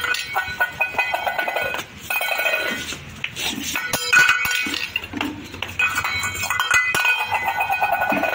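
Small stainless steel bowl clinking, scraping and ringing on a concrete floor as a dog paws and pushes it about, in repeated bouts with short pauses between.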